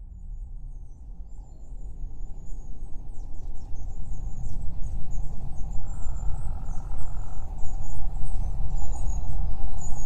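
Outdoor ambience fading in: many short, high-pitched bird chirps over a steady low rumble.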